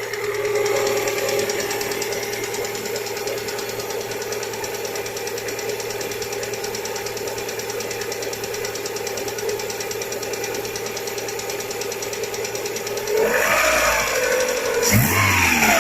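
Lada Priora's VAZ-21126 1.6-litre 16-valve four-cylinder engine idling with a rapid, even knock, then revved up and let back down near the end.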